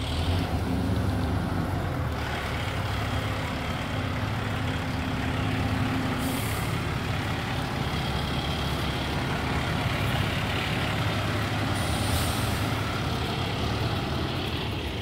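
Fire engine's diesel engine running steadily at idle, a constant low drone. Two brief hisses of air come about six and twelve seconds in.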